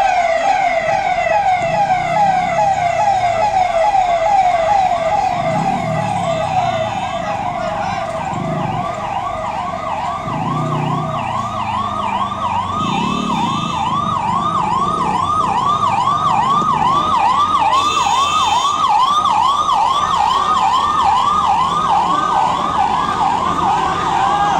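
Electronic vehicle siren in yelp mode, its pitch sweeping rapidly up and down several times a second without a break.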